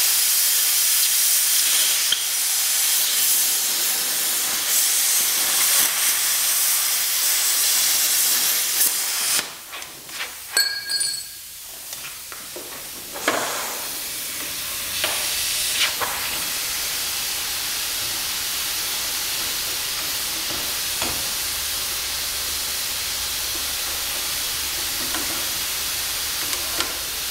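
Handheld plasma cutter slicing through steel, a loud steady hiss that cuts off about nine and a half seconds in. Several short hissing bursts follow, then a quieter steady hiss.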